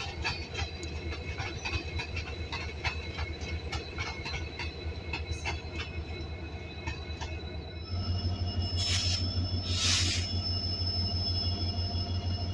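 Passenger train pulling into a station: steady high squealing tones from wheels and brakes, with scattered clicks. About eight seconds in it grows louder with a pulsing low engine hum as it comes close, and two short bursts of hiss follow.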